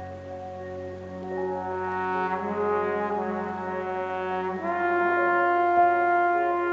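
Background music of sustained, brass-like chords that swell louder about a second and a half in and move to a new chord near the five-second mark.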